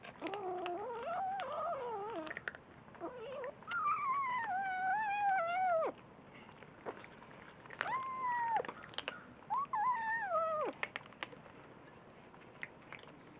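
Kittens growling while eating dry food as a hand touches them: about five whiny, wavering calls, the longest lasting about two seconds and sliding down in pitch, with light clicks in between. The growl is food-guarding.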